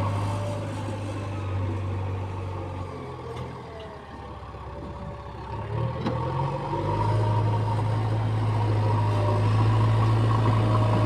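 A heavy diesel engine running. Its sound fades for a few seconds midway, then comes back louder about seven seconds in and holds steady.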